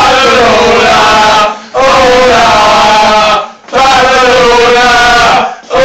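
Men chanting a song together at full volume, in long held phrases with short breaks for breath, loud enough to push a phone's microphone to its limit.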